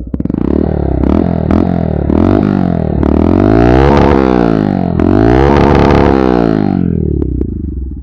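Bajaj Pulsar N160's single-cylinder engine revved through an Akrapovic slip-on exhaust: a few quick blips of the throttle, then two longer revs that rise and fall, dropping back to idle near the end.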